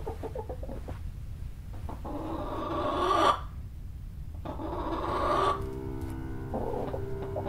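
Radio-drama sound effects: a low rumbling drone under two raspy swells of a sleeping man's heavy, moaning breaths, each growing louder and then cutting off. A held, eerie chord of music comes in about five and a half seconds in.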